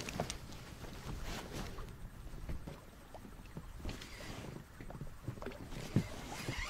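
Faint scattered knocks and light rustling of handling inside a small inflatable fishing boat, over a low steady rumble of wind and water.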